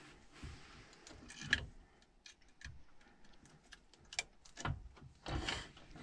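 Irregular light clicks and rattles of wire connectors and sheet metal being handled while transformer leads are moved inside an air handler's control compartment, with a louder click about a second and a half in.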